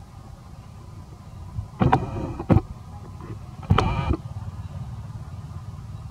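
Two brief pitched cries, about two and four seconds in, with a couple of sharp knocks around the first, over a steady low rumble.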